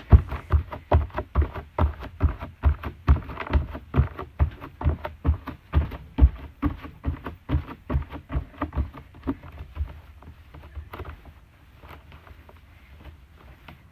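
Human heartbeat picked up by a microphone against the chest: quick, evenly spaced lub-dub thumps, about three a second. They fade out about ten seconds in.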